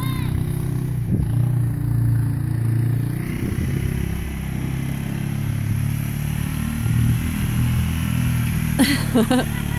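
Four-wheeler (ATV) engine running steadily at low speed as it tows a sled over snow, its pitch wavering a little.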